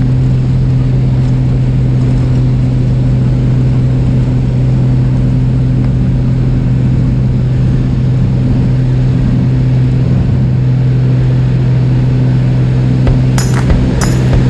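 Single-engine high-wing plane's piston engine running at full throttle on the takeoff roll, a loud steady drone with a constant low hum. About a second before the end, sharp regular ticks begin, about two a second.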